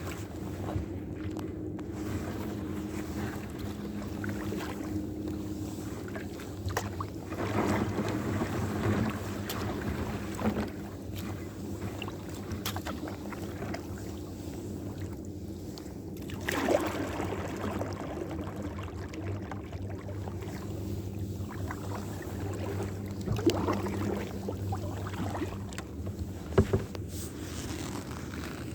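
Water sloshing and splashing around a kayak on a lake, with several louder splashes and wind on the microphone.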